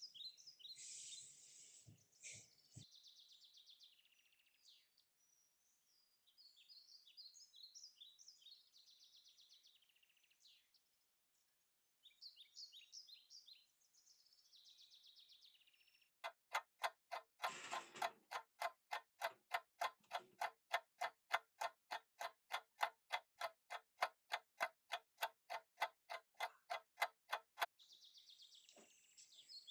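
Faint high chirping like birds, then, about halfway through, a steady clock-like ticking at about three ticks a second that goes on for roughly eleven seconds and stops.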